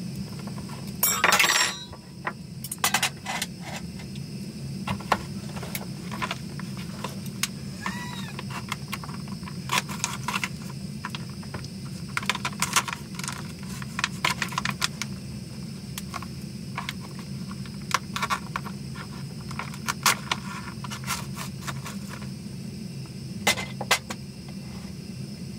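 Gas canister stove burning steadily under a frying pan, with a plastic food packet crinkling and small clicks and knocks as the food is handled. A louder rustling burst comes about a second in.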